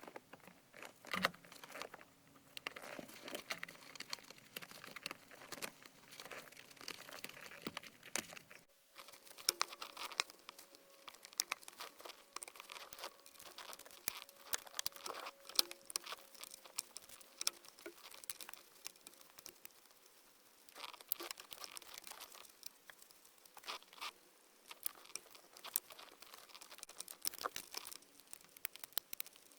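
Hand work on a car's shifter during installation: many small clicks, taps and knocks of tools and parts being handled, over light rustling and crinkling.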